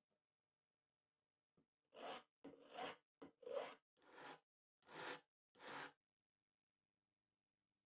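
Flat hand file scraping across a braided copper-wire cuff: about seven short strokes in a steady rhythm, each under half a second, starting about a second and a half in. The filing lightly squares off the copper wires.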